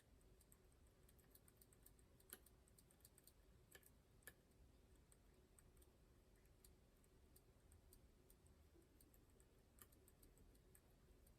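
Faint, scattered small clicks from a Miwa magnetic cam lock being picked with magnet-tipped picks under light tension, with a few louder ticks among them. The clicks are what the picker listens for as a magnetic rotor is worked toward its set position.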